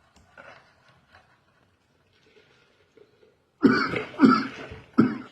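A person coughing: a few faint coughs at first, then three loud coughs in quick succession near the end.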